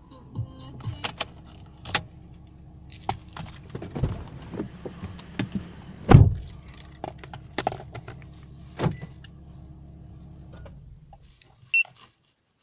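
A car engine running steadily, with scattered clicks and knocks over it and one loud thump about six seconds in. The engine dies away near the end, and a short electronic beep follows.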